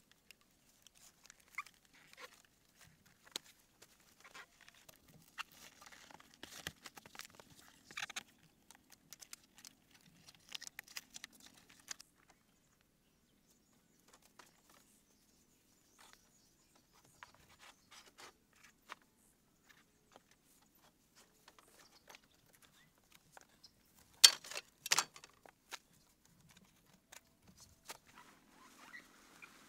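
Scattered small clicks, creaks and rustles of bamboo slats being lashed by hand with rope and vine, with two louder sharp knocks a little past the middle of the second half.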